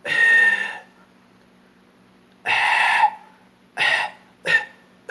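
Beatboxer's cough whistle: four short forced coughs, the first two longer, with a thin high whistle tone riding on the coughs as the whistle begins to come through.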